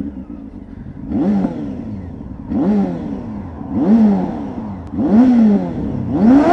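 Motorcycle engine revved four times, each rev climbing quickly in pitch and then dying back down; near the end it is revved again and held high.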